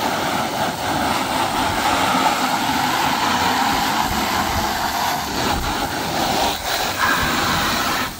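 Garden hose spray nozzle spraying a steady jet of water onto the fabric-covered tail surfaces of a Piper J3 Cub, a continuous hiss with a couple of brief dips as the jet moves.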